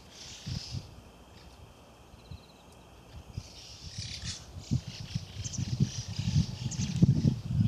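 Footsteps on grassy ground, growing louder over the second half as the walker comes close. Birds chirp faintly in the background.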